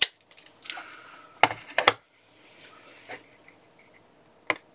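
Small hard objects being handled: several sharp clicks and knocks, with light rustling between them.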